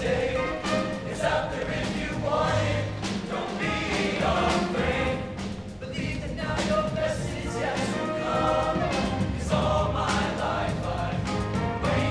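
Show choir singing with its live band: many voices together over drums and bass.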